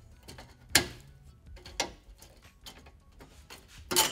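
Channel lock pliers clicking against the hood release cable's retaining clip as it is worked loose: a scatter of small ticks with sharp clicks a little before one second in, near two seconds, and at the end, the first the loudest.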